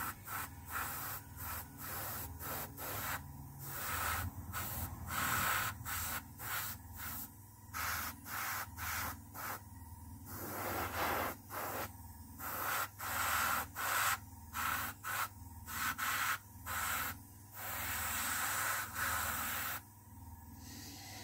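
An airbrush spraying paint in short hissing pulses as its trigger is pulled back and released again and again. The bursts run from a fraction of a second to about two seconds, with the longest near the end, and the spraying stops about a second before the end.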